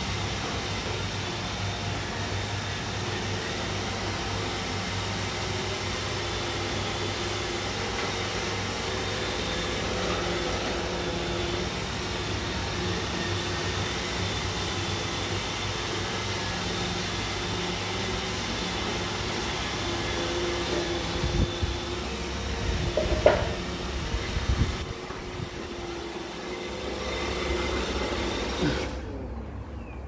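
iRobot Roomba i7 robot vacuum running on a tiled floor: a steady motor whir and hum with a faint high whine, and a few knocks a little past the middle. The whir cuts out shortly before the end.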